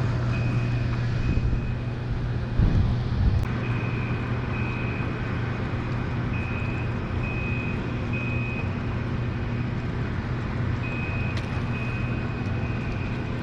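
A boat motor hums steadily and low. Short, high-pitched beeps come and go at irregular intervals over it.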